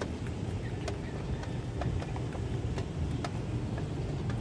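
A hen pecking at a feed dish in a wire cage: irregular sharp taps over a low steady rumble.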